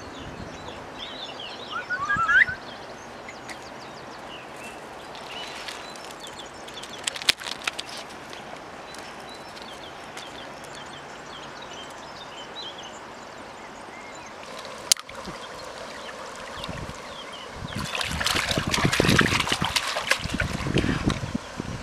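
Steady rush of a shallow river over gravel, with scattered bird chirps. About eighteen seconds in, a louder, rough, irregular noise takes over.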